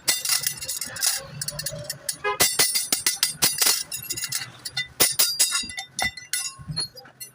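Irregular sharp metal clinks and taps with a bright ringing, from tools and steel clutch parts being struck and handled during repair work.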